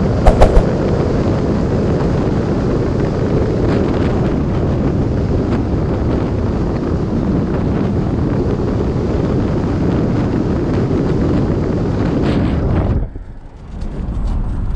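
Heavy wind buffeting the microphone: a loud, steady rushing rumble with no tone in it. A few sharp knocks come just after the start, and the noise drops away briefly near the end before coming back.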